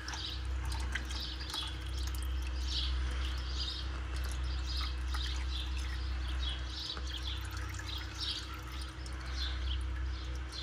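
Used engine oil trickling and dripping from an upturned oil filter into a drain pan. Birds chirp over it, two or three short calls a second, and a steady low hum runs beneath.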